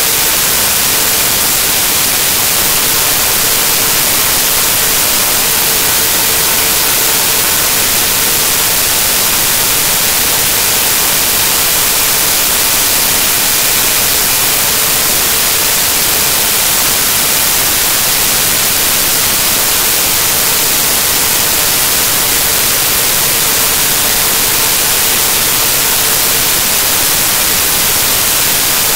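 Loud, steady static hiss that does not change, with a faint steady hum tone under it.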